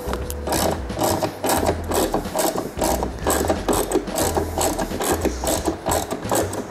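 Hand socket ratchet clicking in quick runs of short clicks as it backs out a screw holding a motorcycle saddlebag latch cover.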